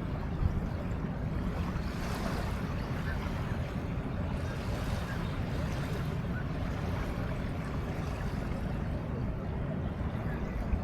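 Steady outdoor riverside ambience: wind and river water on a wide city river, with a steady low rumble.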